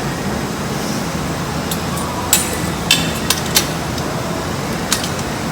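A handful of short, sharp clicks and knocks from parts being handled while the kettle's pump is fitted, over a steady background hiss.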